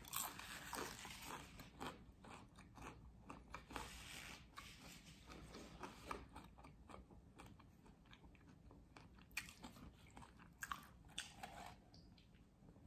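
A person chewing crunchy fried corn tortilla close to the microphone: quiet, irregular crunches and mouth sounds that thin out near the end.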